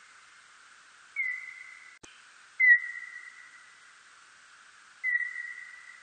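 Birdlike noctule bat calls, slowed down into hearing range. Three whistle-like notes, the middle one loudest: each opens with a quick downward sweep, then holds a steady tone that fades away over about a second, over a faint hiss.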